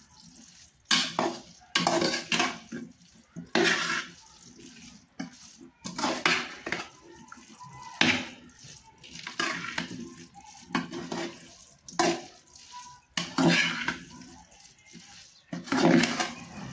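Metal spoon scraping and knocking against the sides of an aluminium pot while stirring drained macaroni into tomato sauce. There are about a dozen short scrapes at uneven intervals of roughly a second.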